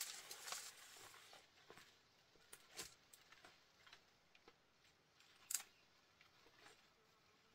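Faint rustling of leaves and brush in the forest undergrowth for the first second or so, then scattered small snaps and crackles of twigs and plant stems, the sharpest about five and a half seconds in.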